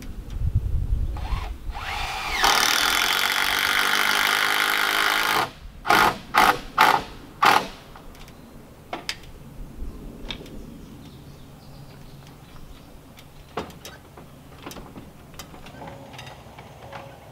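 Power drill running steadily for about three seconds, then given four short bursts, while a log rafter is being fastened into the timber frame. A few light knocks follow.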